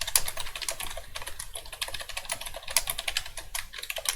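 Fast, continuous typing on a Perixx PERIBOARD-106 computer keyboard: a rapid run of many key clicks a second.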